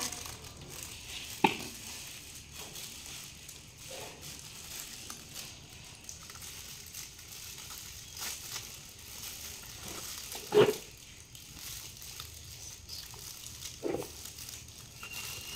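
Quiet handling noise from sausages being threaded onto skewers: faint crinkling with a few light knocks, the sharpest about ten and a half seconds in.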